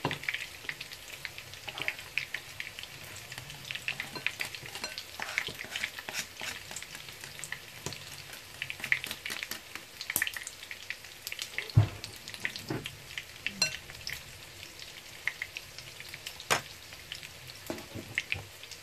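Tofu frying in hot oil: a steady crackle and spatter of small pops. A few knocks sound over it, the loudest a low thump about twelve seconds in.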